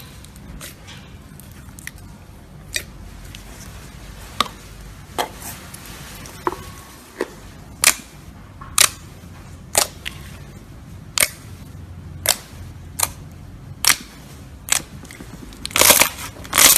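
Slime being pressed and played with, giving a series of sharp pops and clicks, roughly one a second, with a quicker run of them near the end.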